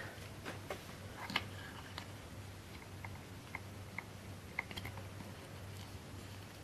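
Faint, scattered light clicks and taps of small plastic figure pieces being handled and fitted together, about a dozen over several seconds.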